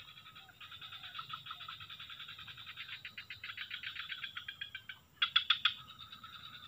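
Small animals calling in fast pulsed trills, a rapid run of repeated notes that goes on for several seconds, pauses briefly, then comes back louder for a moment about five seconds in.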